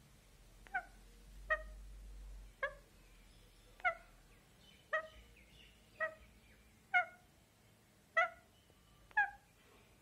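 Rose-ringed parakeet giving a series of short, high calls, about one a second, nine in all.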